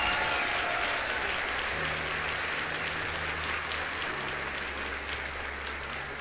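Crowd applause, thinning gradually; low bass notes come in underneath about two seconds in.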